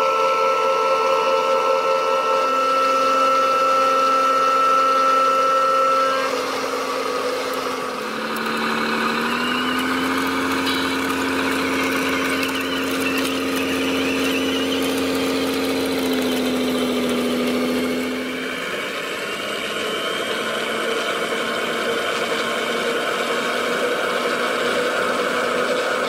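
Radio-controlled model dump trucks running: a steady motor hum and whine. The pitch rises with a short glide about eight seconds in, holds, and changes again near eighteen seconds as the trucks drive.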